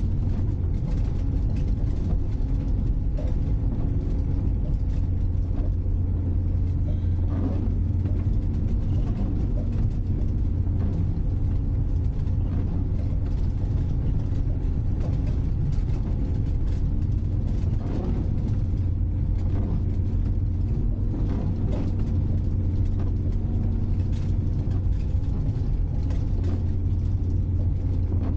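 Citroën C15 D van's diesel engine running at a steady pace, with road and tyre noise on snow, heard from inside the cab as an even low hum.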